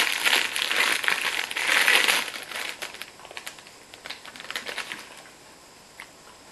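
Clear cellophane bag crinkling as it is opened and handled, densely for about two seconds, then in lighter, scattered rustles that fade out.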